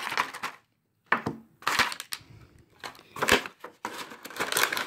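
Action figure packaging, the cardboard backing card and plastic blister, being handled and crinkling in several short bursts.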